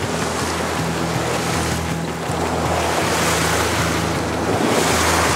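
Wind buffeting the microphone and water rushing along the hull of a sailboat under way, over a low steady hum.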